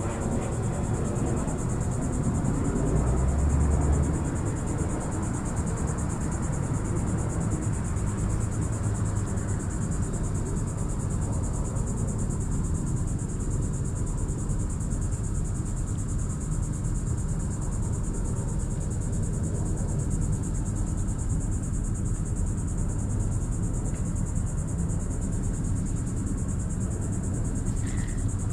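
Steady high-pitched chorus of insects shrilling without a break, over a continuous low outdoor rumble that swells briefly about three seconds in.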